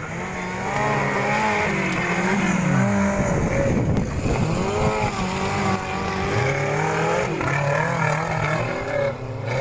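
Engines of modified off-road jeeps racing on a dirt track, revving up and down as they accelerate and shift. One jeep passes close about four seconds in.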